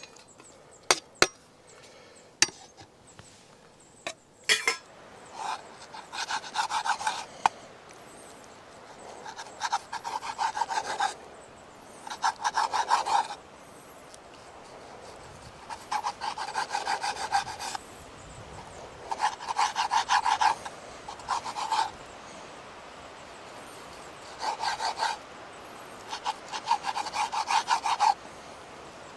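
Kitchen knife sawing through raw meat on a wooden chopping board, in short bursts of quick back-and-forth strokes repeated about every two to four seconds. A few sharp knocks come first, as the board and knife are worked against the steel pan.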